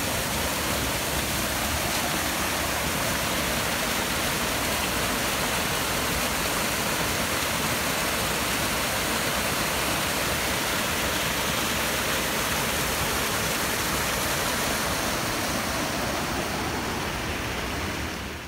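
Small waterfall spilling through a gap in a stone wall into a brook: a steady rush of falling water that fades out near the end.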